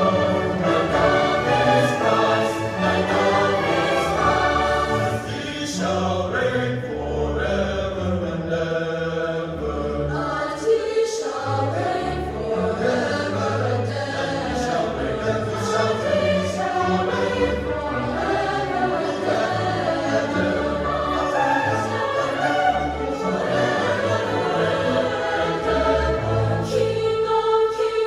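A large mixed choir singing with a string orchestra of violins, violas, cellos and double basses, in full, continuous music; near the end the sound thins briefly to a single held note.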